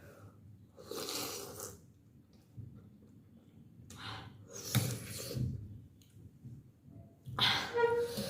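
Close-up mouth sounds of someone eating vegetable thukpa noodle soup, in about four short bursts, the last ending in a brief voiced sound near the end.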